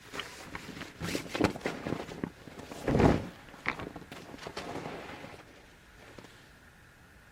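Footsteps and handling noises, irregular knocks and rustles, with one louder thump about three seconds in; quieter from about five and a half seconds.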